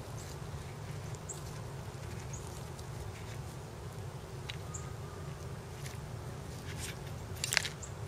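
Ideal multi-crimp hand tool working on a red insulated butt connector: faint scattered clicks and creaks of the steel jaws, then one sharp click near the end as the jaws release, over a steady low background rumble.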